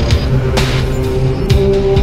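Intro theme music: steady held tones with a few sharp, heavy hits spaced about half a second to a second apart.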